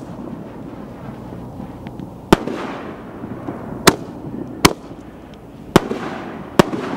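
Reloadable canister artillery shells going off one after another: five sharp bangs, the first a little over two seconds in and the rest about a second apart, each trailing off in a brief rumbling decay.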